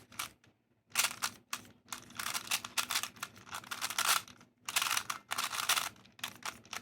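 GAN 356i smart speedcube, a 3x3 puzzle cube, being turned rapidly during a timed solve: fast plastic clicking and clacking in quick bursts of turns. There is a brief pause about half a second in.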